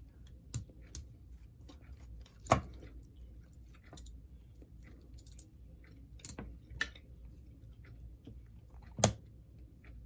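Small clicks, scrapes and knocks of hand tools and parts while a model locomotive is being taken apart, with two louder knocks, one about two and a half seconds in and one near the end.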